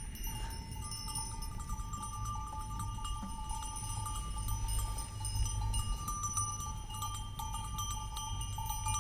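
Bells worn by a passing flock of sheep, ringing and clinking on and on as the animals walk, several bell tones sounding together.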